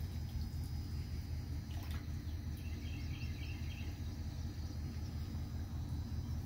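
Steady low rumble of an idling engine, with a few faint bird chirps about halfway through.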